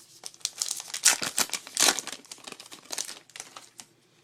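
Crinkling and tearing of a trading card pack's wrapper as it is torn open, a quick run of crackles that fades out near the end.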